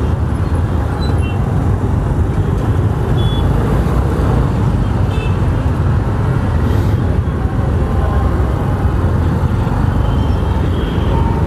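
Slow-moving traffic jam of scooters, motorcycles and auto-rickshaws: a steady low rumble of idling and creeping engines close around a two-wheeler.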